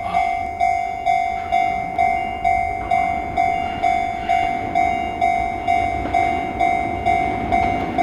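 Japanese railway level-crossing warning bell ringing with a steady, repeating ding, a little over two strikes a second. A low rumble builds under it near the end.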